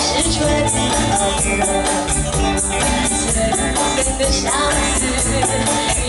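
Live band playing a Mandopop song with a woman singing the melody into a microphone, over a steady beat with a high percussion tick about four times a second.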